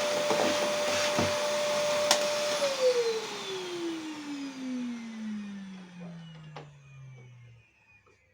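High-speed electric motor running with a steady whine, then switched off about two and a half seconds in, its pitch falling smoothly for about five seconds as it winds down to a stop. A few sharp knocks come while it is still running.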